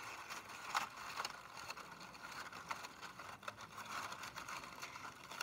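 Faint rustling of plain copy paper being handled and pressed, with a few light crinkles and small taps.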